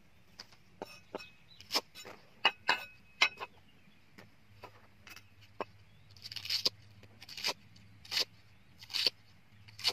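Clinks and knocks as things are set down on a round wooden chopping block, then a cleaver chopping through green stalks on the block. The cuts come a little more than once a second, five of them in the second half.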